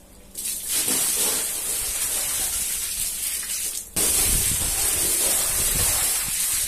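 A heavy stream of water gushing onto a soaked, soapy rug and splashing across it, a steady loud hiss. It breaks off for a moment about four seconds in, then carries on.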